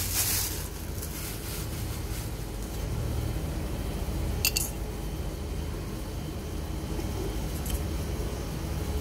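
Plastic bag rustling briefly at the start, then a steady low background rumble with one sharp click about halfway through.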